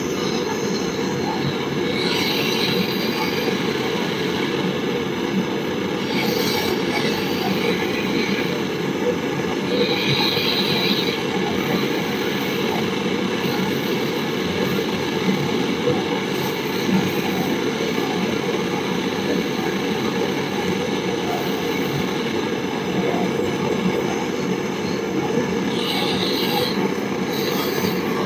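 Handheld gas-cartridge torch burning steadily, its flame heating a copper refrigerant pipe joint on an air-conditioner compressor.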